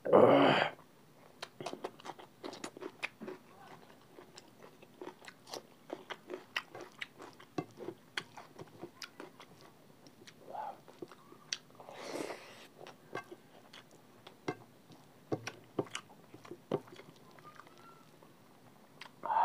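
Close-miked eating: biting and chewing on spicy chicken feet, with many sharp wet smacks and crunchy clicks of mouth and fingers working rice and curry gravy. A short loud burst of mouth noise comes right at the start, and another about twelve seconds in.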